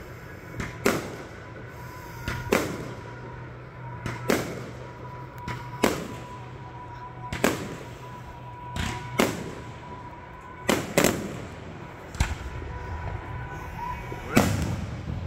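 Aerial fireworks going off in a steady series, a sharp bang every one to two seconds, some in quick pairs.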